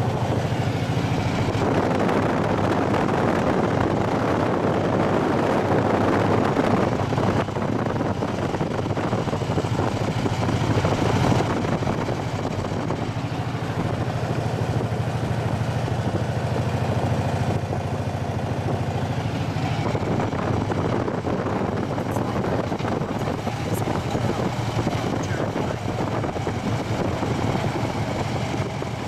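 Touring motorcycle riding at road speed, heard from a camera mounted on the bike: a steady engine drone under wind and road noise.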